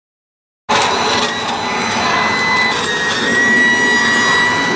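Battery-powered leaf blower running: a steady rush of air with a high electric motor whine, cutting in suddenly about a second in and holding at one speed.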